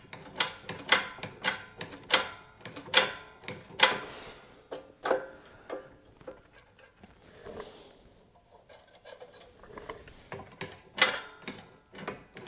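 Light metallic clicks and rattles from a mini bike's carburetor throttle linkage and return spring being worked by hand. They come in irregular clusters, with a lull of a few seconds past the middle and a few louder clicks near the end.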